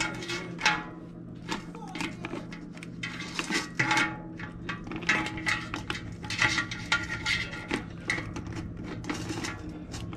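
Hard snow crab leg shells clattering and knocking against the sides of an enamel stockpot as they are moved around by hand, a string of uneven clicks and knocks.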